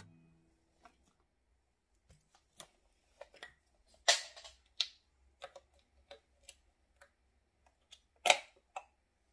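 Scattered light clicks and taps of objects being handled, with two louder knocks about four seconds and eight seconds in.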